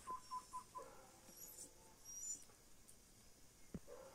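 Faint, distant yelps of hunting dogs working a scent trail: a quick run of four short high yelps at the start, then a few scattered fainter ones, with thin high chirps and one sharp click near the end.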